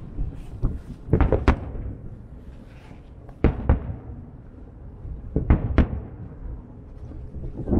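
Aerial firework shells bursting, sharp booms coming in close pairs about every two seconds.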